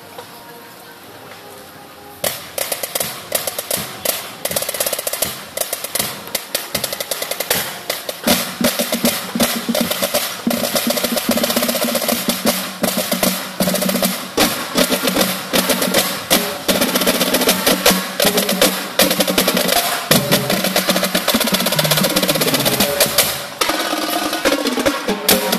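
Marching band percussion line playing a fast, dense cadence on snare drums, bass drums and crash cymbals, coming in sharply about two seconds in. Near the end there is a run of pitched bass drum notes stepping downward.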